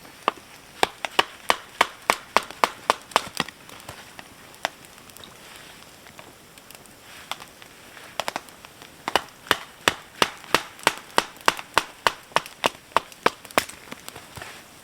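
Wood being chopped into kindling: sharp, evenly spaced strikes about three a second, in two runs with a pause of a few seconds between them.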